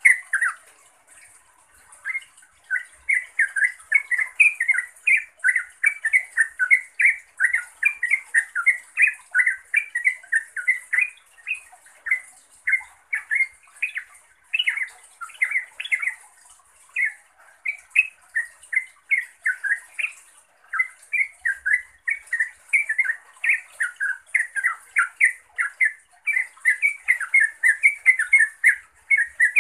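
Yellow-vented bulbul (trucukan) calling in a fast run of short chattering notes, about three a second, with a brief pause just after the start.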